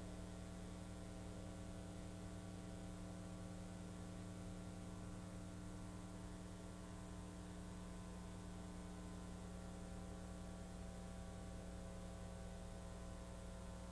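Faint, steady electrical mains hum with a stack of overtones and a light hiss, unchanging throughout; no air saw or cutting sound is heard.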